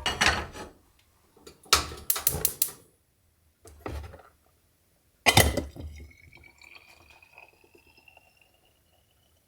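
A few sharp clanks of pots or kitchenware, the loudest about five seconds in. Then liquid pours into a container with a thin tone that rises steadily in pitch as the container fills, for about three seconds.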